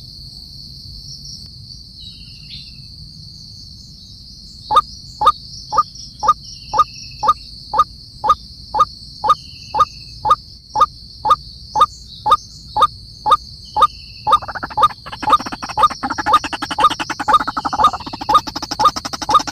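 A steady, high insect drone runs throughout. From about five seconds in, a frog gives loud, evenly spaced calls about two a second. Near the end a denser chorus of rapid calls joins in, and faint short chirps recur every second or so.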